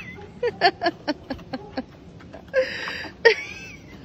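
A person laughing in a quick run of short bursts, then a longer, breathier laugh about two and a half seconds in.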